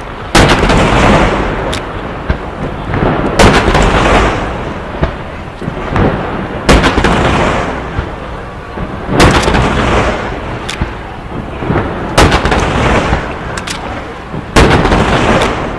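Aerial firework shells bursting in quick succession, a loud sharp boom every two to three seconds, each trailing off in a long rolling rumble, with smaller cracks and pops between the big bursts.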